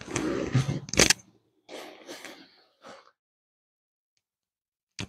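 Rustling of nylon fabric and the shifting of an ATORPOK folding camping cot and its Exped MegaMat self-inflating mattress as a person gets up off it, with a sharp knock about a second in. Softer rustles and shuffles follow, fading out by about three seconds, and a short click comes near the end.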